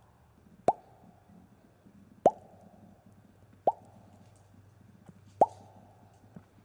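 A cartoon-style "plop" pop sound effect, repeated five times about every second and a half. Each pop is a quick rising blip with a short fading tail.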